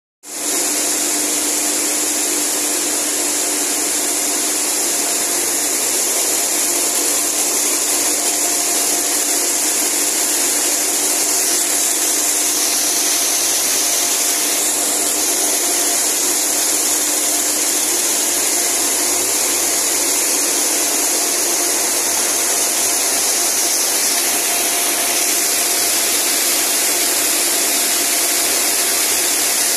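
High-speed bobbin braiding machines running together, making a loud, steady mechanical hiss and clatter with a constant hum underneath.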